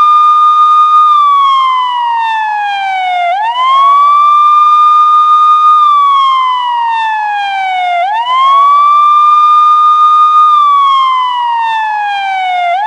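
Police siren sounding a loud, slow wail. The pitch climbs quickly, holds high for about a second, then slides slowly down over about two seconds, and the cycle repeats roughly every four to five seconds.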